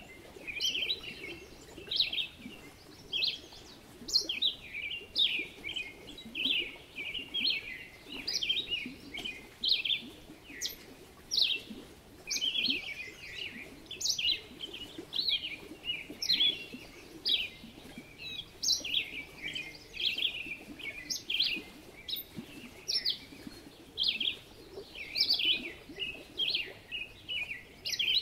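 Small birds chirping in a chorus: many short, quick, falling chirps overlapping one another, several a second.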